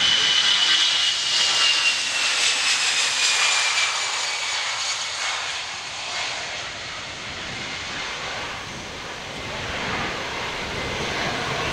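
Airbus A320-214's CFM56-5B turbofan engines running at takeoff power as the jet rolls past and lifts off. A high whine slides down in pitch over the first few seconds as it passes, then the engine noise fades somewhat and swells slightly again near the end.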